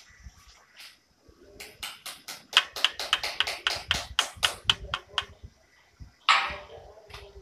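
A quick, even series of sharp hammer knocks, about four a second for three and a half seconds, fixing a clamp that holds the split AC's copper pipe to the wall. About six seconds in comes one louder, short noise.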